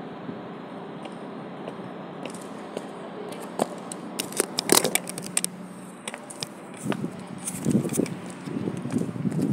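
Handling noise from a phone being picked up: a run of sharp clicks and crackles about four to five seconds in, then softer bumps, over a steady low background hum.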